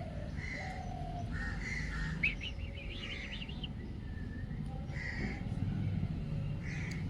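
Birds calling: a string of short repeated calls, with a quick run of higher chirps about two seconds in, over a steady low hum.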